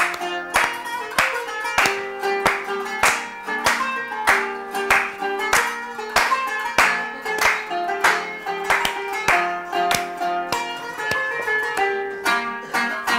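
Kanun, the Turkish plucked zither, playing a brisk rhythmic instrumental introduction in quick plucked notes, with hand clapping along in time.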